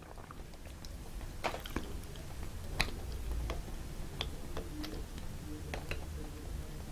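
Scattered small clicks and ticks of a Wing Sung 3008 piston-fill fountain pen being worked in an ink bottle: the piston knob is turned down and up to flush the pen and draw ink. The clicks are faint and irregular, one somewhat louder nearly three seconds in.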